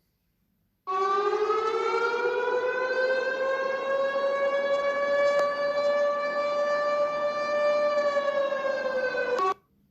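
Civil defense warning siren sounding as an emergency alert signal. The siren starts suddenly about a second in and rises in pitch over a few seconds. It then holds a steady wail, sags slightly in pitch and cuts off abruptly near the end.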